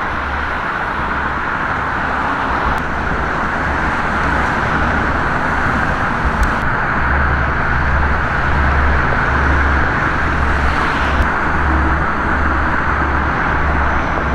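Steady road traffic noise from a busy multi-lane street, a continuous roar of passing cars with a low rumble that swells and fades.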